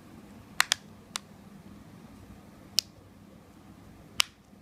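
Plastic back cover of a Gomax Swift L1 smartphone being pressed onto the phone, its clips snapping into place: five sharp clicks, a quick pair about half a second in, then single clicks at about one, three and four seconds in.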